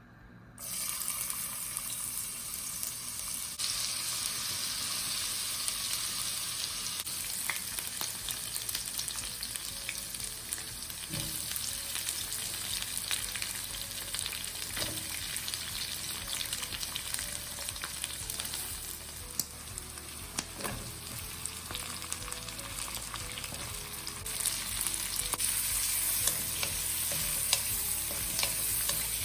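Food sizzling in hot oil in a pan, with a utensil stirring and clicking against the pan. The sizzle starts abruptly about half a second in and runs steadily, a little louder near the end.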